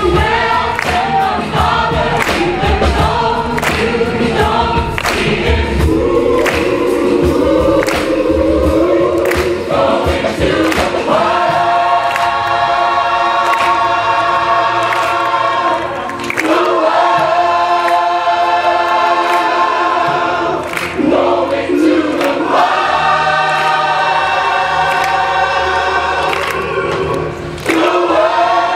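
Large gospel choir singing live, with a clapped, beating rhythm in the first ten seconds or so, then long held chords sung in several phrases.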